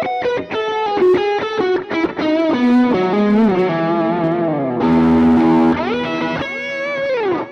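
Telecaster Custom electric guitar played through a Cuvave Cube Baby mini amp on a distorted setting: a fast run of single-note lead lines with bends and vibrato, including a held, wavering note a little past the middle.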